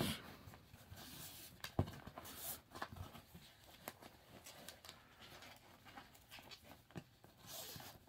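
Faint rustling and scattered light clicks of paracord being handled on a wooden tabletop, as Prusik hitches are slid along the end loop of a paracord tree saddle.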